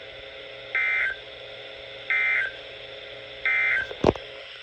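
Emergency Alert System end-of-message signal on weather radio: three short, identical bursts of buzzy digital data tones, about 1.4 seconds apart, closing the severe thunderstorm warning. A steady radio hum and hiss runs underneath, and a sharp click comes near the end.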